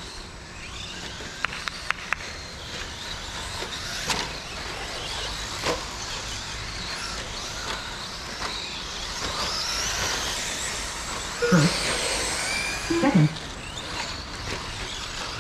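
Radio-controlled race trucks' motors whining, the pitch sliding up and down as they accelerate and brake around the dirt track, with a few sharp clicks early on. Two short, louder sounds come near the end.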